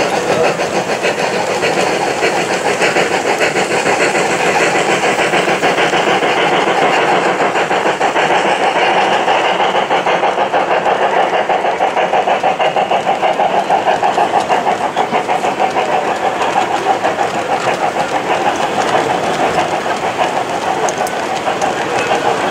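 Gauge 1 (1:32 scale) model freight train running past: double-headed model steam locomotives with a fast, rhythmic exhaust beat, and tank wagons and open freight wagons rolling and clattering along the track.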